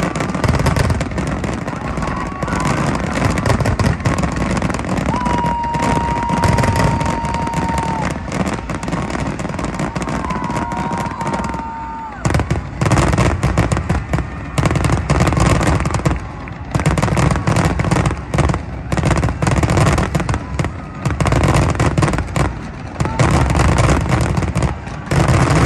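Fireworks display in a dense barrage: shell bursts and crackle follow one another almost without a break, with only brief lulls. Twice in the first half, a steady high whistle-like tone is held for a few seconds above the bangs.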